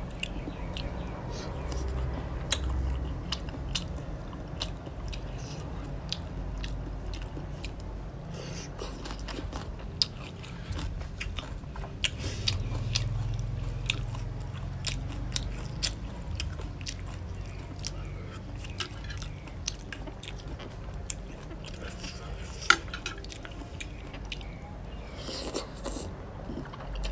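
Close-miked chewing and crunching of papaya salad with raw crab and rice noodles, full of small sharp wet mouth clicks, with one louder click about 23 seconds in.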